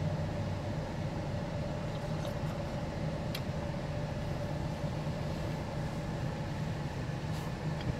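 Steady hum of an idling car, heard from inside the cabin, with a couple of faint clicks.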